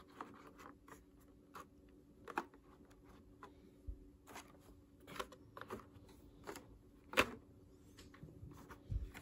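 Faint handling noise: scattered light clicks and taps of things being touched and moved, the sharpest about seven seconds in, over a faint steady hum.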